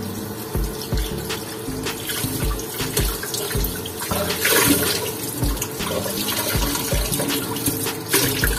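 Kitchen tap running, with water splashing off a plate into a stainless steel sink as meat is rinsed under it; the splashing is heaviest around the middle. Background music with a steady beat plays underneath.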